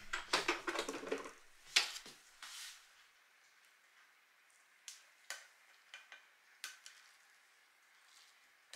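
Rice cooker lid released and swung open with a run of plastic clicks and knocks, the loudest about two seconds in. A few faint light ticks follow as gloved fingers lift the kombu out of the inner pot.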